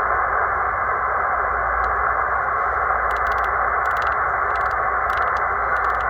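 A C. Crane CC Skywave SSB portable shortwave receiver putting out steady static hiss through its speaker. It is tuned to an empty frequency where the RWM time signal is not coming in.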